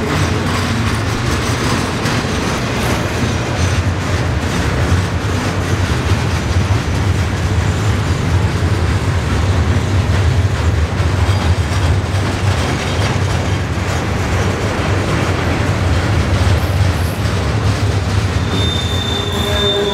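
A freight train's cars rolling past close by: a steady rumble of steel wheels on the rails with irregular clicking over the rail joints.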